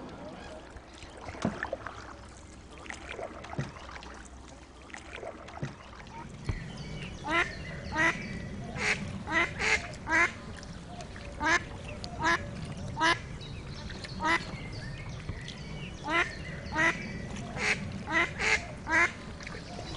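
Mallard hen quacking: short calls repeated irregularly, one or two a second, starting about a third of the way in. Before that there are a few faint soft knocks.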